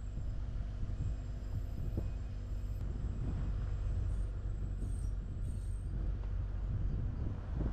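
Vehicle moving slowly along a paved road: a steady low rumble of engine and tyre noise.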